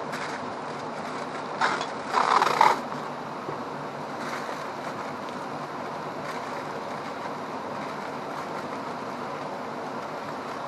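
Steady rushing of river water, with a short, louder rustle about two seconds in.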